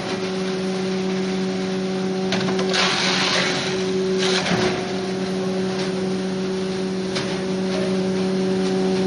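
Hammer mill branch grinder running with a steady hum, with two louder bursts of grinding noise about three seconds and four and a half seconds in.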